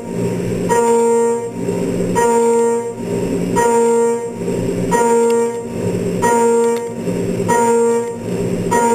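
Carbide end mill doing high-speed trochoidal milling of steel on a CNC machining centre: a loud, steady cutting tone that comes and goes a bit more than once a second as the tool sweeps into and out of the cut on each loop.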